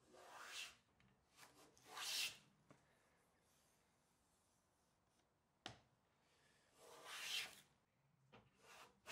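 No. 6 hand plane taking short strokes on the edge of a maple panel, cutting a chamfer. There are four strokes, two near the start and two near the end, and a single sharp tap a little past the middle.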